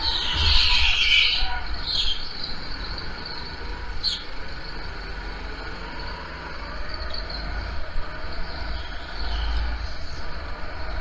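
Go-kart engine running under throttle as heard from on board the kart, with other karts nearby and short high-pitched screeches, the loudest in the first second or so, typical of tyres scrubbing on the smooth track surface.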